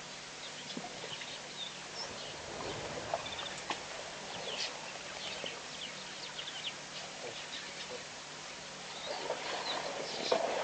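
Birds chirping: many short, high calls scattered over a steady outdoor background hiss.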